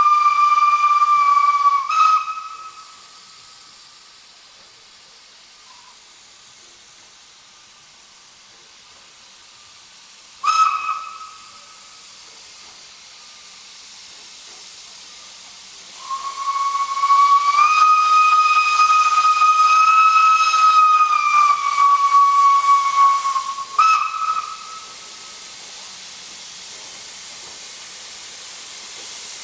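Steam whistle of SNCF 140 C 27 steam locomotive: a blast cutting off about two seconds in, a short toot around ten seconds, then a long blast of about eight seconds whose pitch steps up slightly and sags near its end, followed by a short toot. After that comes a steady hiss of steam.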